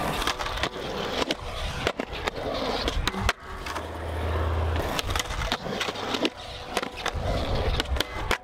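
Skateboard wheels rolling on concrete with a low rumble, broken by several sharp clacks of the board popping and landing. Near the end the board rides along a metal rail.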